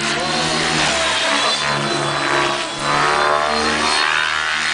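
Radio-controlled helicopter flying overhead, its drive and rotors rising and falling in pitch over and over as it manoeuvres, with a steady high whine throughout.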